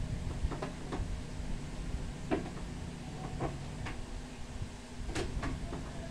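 A hard plastic item being handled against a wooden board, giving several light knocks and clicks at irregular intervals over a steady low hum.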